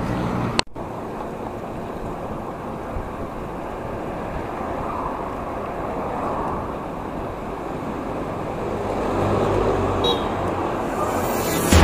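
Road traffic noise heard from a moving bicycle, with cars and motorcycles going past; a motor vehicle passes a little louder about nine to ten seconds in. A short click and dropout just under a second in.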